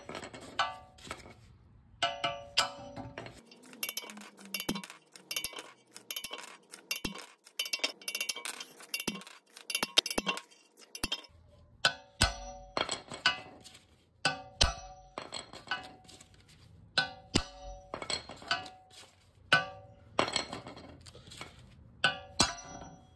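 Hammer blows ringing on steel as the old OEM ball joint is driven out of a 1996–2000 Honda Civic's front steering knuckle. The blows are repeated and uneven, with a quicker run of lighter taps in the middle.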